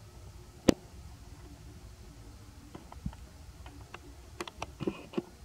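A single sharp click about half a second in, then a scatter of lighter clicks and taps in the second half, over a low steady rumble.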